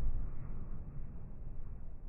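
Deep rumble of an explosion slowly dying away, with no sharp blast or separate bangs.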